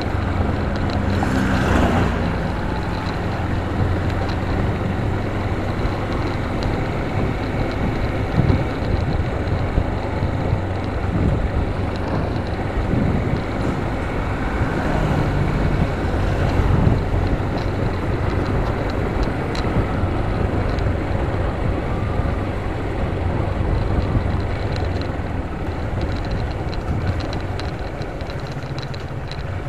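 Motorcycle engine running at steady riding speed, heard from the rider's own bike, under a constant rush of wind and road noise on the microphone.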